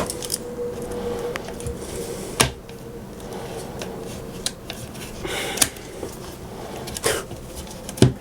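A few sharp metallic clicks and knocks, spread out, with a short scrape in between, from the parts of a boiler flue being handled. A faint steady hum runs under the first couple of seconds and stops.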